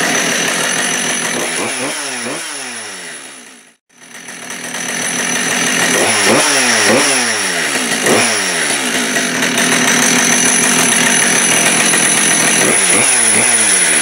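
Husqvarna 572XP two-stroke chainsaw engine running after a rebuild, its throttle blipped several times with the revs falling back toward idle after each blip. The sound cuts out abruptly about four seconds in and picks up again straight away.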